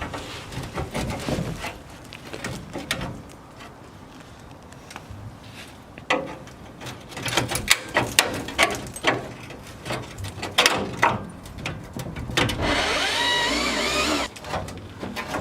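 Sheet-steel knocks and clanks from a rusted jacking point being worked loose from a car body after its spot welds were drilled out, with a quieter stretch between. Near the end comes about two seconds of metal scraping with a wavering squeal.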